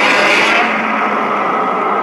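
Godzilla Ultima monster sound effect: a loud, harsh, sustained noise with faint steady tones running through it. Its highest hiss drops away about half a second in.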